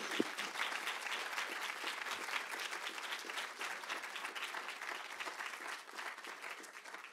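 Audience applauding: dense, steady clapping from a seated crowd that thins out and fades near the end.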